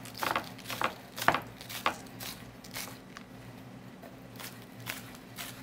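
Chef's knife slicing green onions on a wooden cutting board: short knocks of the blade striking the board, about two a second, with a pause of about a second midway.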